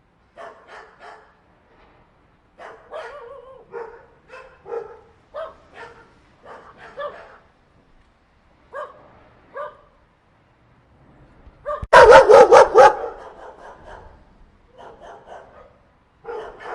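A group of dogs barking in short volleys with brief pauses between them. About two-thirds of the way through comes a much louder flurry of rapid barks.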